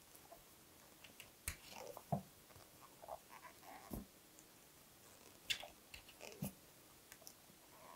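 Faint handling sounds of a crochet hook working thick 10 mm yarn: soft rubbing with scattered light clicks, about five sharper ones spread through.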